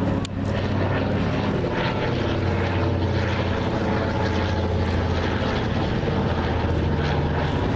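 Douglas C-47 Skytrain's twin radial piston engines running steadily as the plane flies overhead, a low, even propeller hum.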